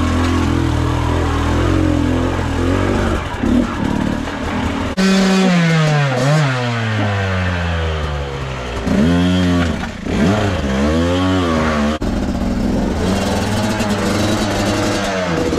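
Two-stroke enduro dirt bike engines: a steady idle, then about five seconds in a long drop in revs, followed by quick rising-and-falling throttle blips as a bike is worked up a steep rock step.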